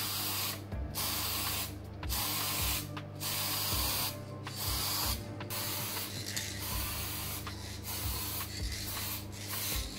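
Aerosol spray can of plastic primer hissing in short bursts, with brief pauses roughly once a second, as it is sprayed in passes over a Lexan RC car body.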